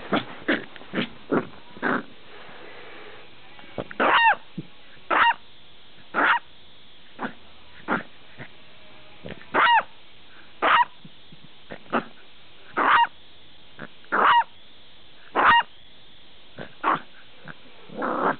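Beagle puppy barking in short, high barks, roughly one a second with a few pauses and some quieter yips between. The first few are softer; the barks get louder about four seconds in.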